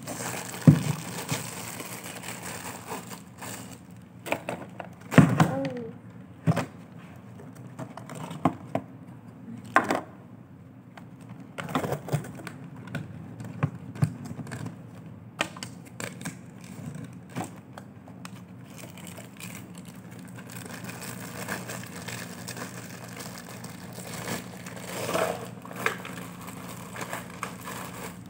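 Thin plastic food containers knocking and clicking as a stack of them is handled and pulled apart, with irregular sharp knocks. In the last third a clear plastic bag rustles and crinkles as the stack is slid back into it.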